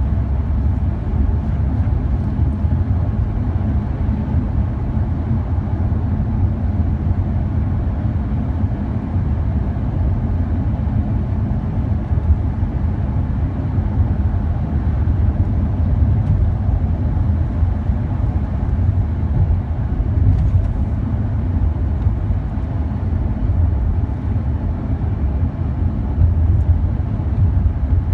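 Lamborghini Huracán's V10 engine and tyre noise heard from inside the cabin while cruising: a steady low rumble with no hard revving.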